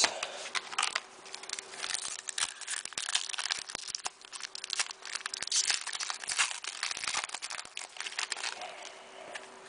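Foil wrapper of a trading-card pack crinkling and tearing as it is opened, in a dense run of small crackles and clicks.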